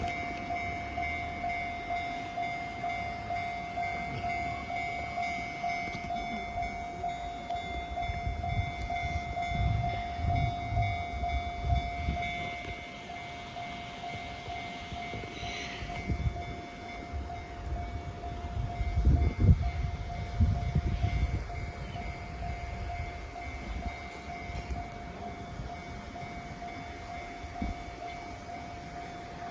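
Japanese level-crossing warning bell ringing in a steady, rapidly repeating tone. Low rumbling swells up twice over it, loudest about twenty seconds in.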